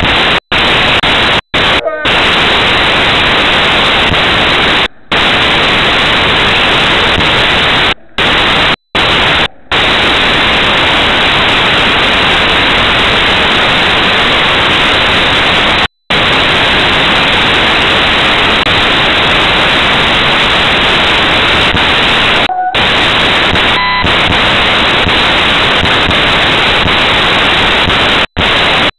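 Loud, steady static hiss that drowns everything else and cuts out suddenly for a moment about a dozen times.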